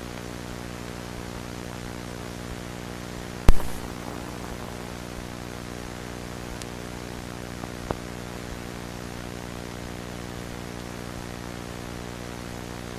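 Steady electrical hum with hiss and static from a VHS-style analog-horror soundtrack, broken by a single sharp, loud bang about three and a half seconds in and a fainter click near eight seconds.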